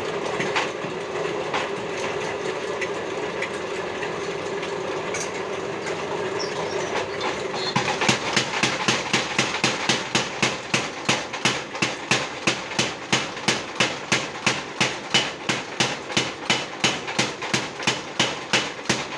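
Power hammer running: a steady hum for about eight seconds, then the ram starts striking in a fast, even rhythm of about three blows a second.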